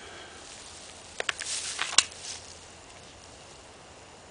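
A handgun being pushed back into a hip holster: a couple of light clicks about a second in, then a brief rustle of holster and clothing and one sharp click about two seconds in as the pistol seats in the holster's push-button retention.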